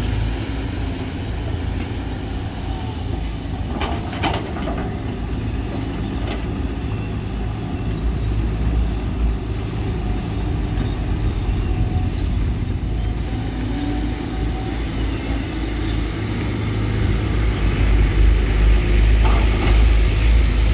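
Volvo EC210D hydraulic excavator working, its diesel engine running steadily with a few sharp knocks, growing louder over the last few seconds.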